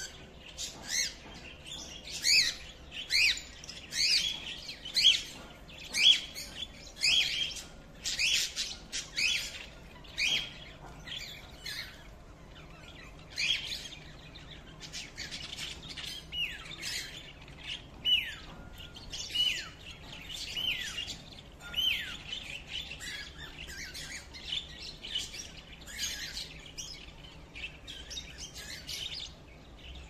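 Pet cockatiels and budgerigars chirping and calling together: a dense run of short, sharp calls, several a second, loudest in the first dozen seconds. Repeated falling whistled calls follow.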